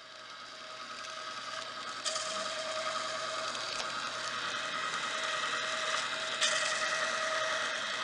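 Bolex magnetic striping machine running Super 8 film through its rollers and onto the take-up reel: a steady mechanical whir with a constant whine. It rises in level over the first couple of seconds, with a sharp click about two seconds in and another past six seconds.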